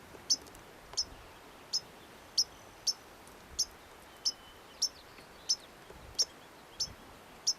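A small bird peeping: short, high chip notes repeated at an even pace, about three every two seconds.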